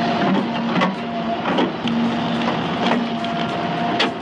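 A machine running with a steady hum that cuts out and comes back several times, with sharp cracks about one, one and a half, and four seconds in.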